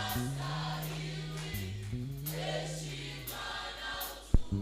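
Gospel worship music: a choir singing softly over long held low chords. A single sharp knock comes near the end.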